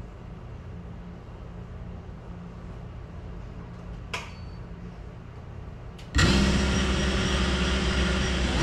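FPV quadcopter's brushless motors kicking in abruptly about six seconds in and then spinning at a steady idle whine, after a faint low hum and a couple of short clicks.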